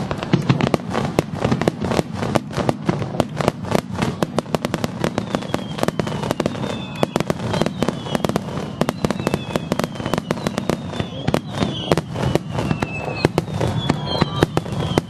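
Fireworks display: a dense, continuous barrage of crackling pops and bangs, joined from about a third of the way in by several high whistles that each fall in pitch.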